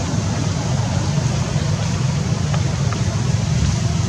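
Steady low rumbling noise with a fainter hiss above it, unbroken throughout, with a couple of faint ticks about two and a half and three seconds in.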